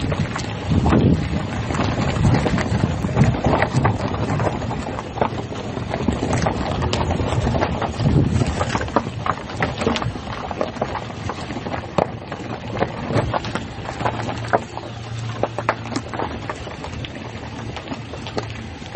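Vehicle driving on a rough unpaved dirt road: continuous tyre and road rumble with frequent knocks and rattles from the bumpy surface, heavier in the first half and easing later, when a low steady engine hum comes through.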